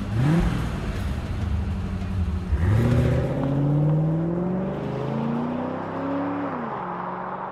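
Car engine accelerating away, its pitch rising twice as it goes up through the gears, then dropping back and easing off near the end.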